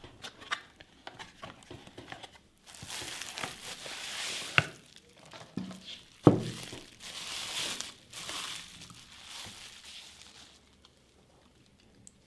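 Light taps and scrapes of a cardboard box being opened, then clear plastic wrapping crinkling and rustling for several seconds as it is pulled off a soap dispenser. Two sharp knocks come partway through.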